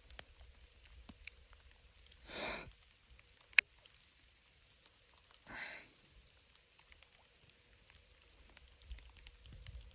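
Light rain pattering, with scattered drips ticking. Two short rushing noises about three seconds apart break in, and between them comes one sharp tap, the loudest sound.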